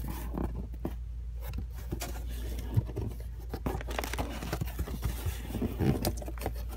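Cardboard box and paper being handled and opened: irregular scratching, tapping and light scraping, over a steady low hum.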